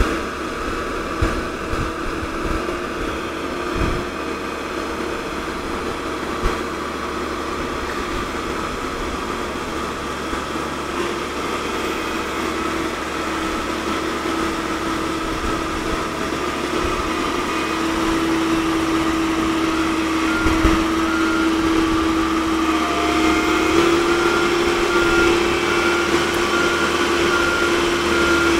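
Komatsu PC130-8 excavator's diesel engine and hydraulics running steadily while it digs, with three short knocks in the first few seconds. The hum grows louder about two-thirds of the way in, and a rapid string of short high beeps starts soon after.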